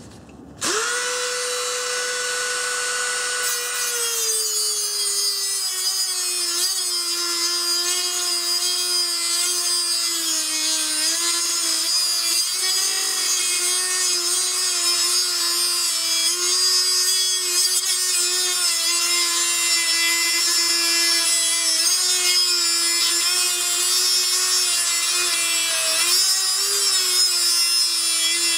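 Dremel rotary tool with a cutoff wheel cutting through a rusted exhaust bolt. The motor's whine starts about half a second in and drops in pitch about four seconds in as the wheel bites into the metal. It then holds steady, wavering slightly as the cut goes on.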